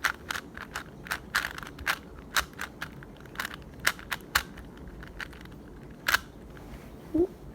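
Plastic Rubik's cube layers being turned by hand, a run of sharp, irregular clicks that thins out to a single click about six seconds in. A brief voice-like sound comes near the end.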